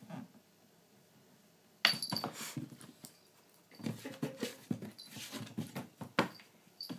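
A hand tapping and scraping on a wooden table top and a glass mat while a cat pounces at it, in short knocks and scrapes. There is a sharp knock just before two seconds in, a busy run of knocks and scrapes later on, and another sharp knock about six seconds in.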